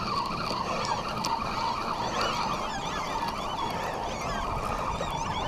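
Many birds chirping and calling over and over, against a steady background rush.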